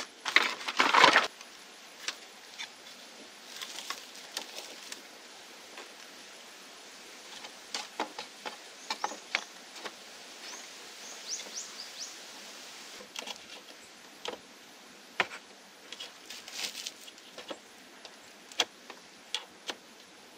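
Hollow bamboo poles clattering and knocking against each other, loudest in a cluster about the first second, then scattered single knocks and taps as the poles are stood upright and fitted into a wall.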